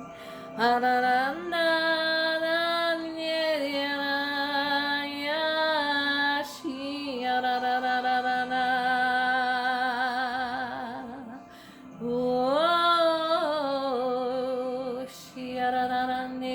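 A woman singing long, wordless held notes with vibrato, sliding up between pitches, in spontaneous 'singing in the spirit' worship. There are short breaks for breath about two-thirds of the way through and again near the end.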